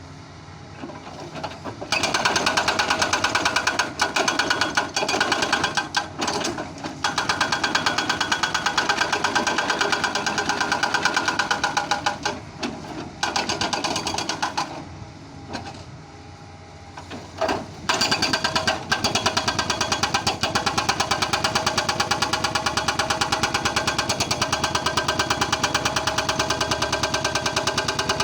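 Doosan excavator at work, making a rapid, even hammering in long runs that drops back twice in the middle.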